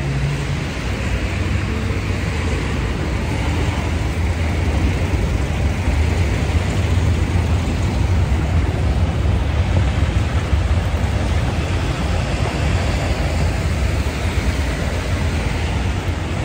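Steady road traffic noise: the rumble and tyre hiss of cars passing on a busy city avenue.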